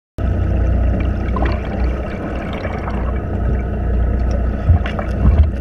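Muffled underwater water noise with a steady low rumble, and a few sharp knocks near the end.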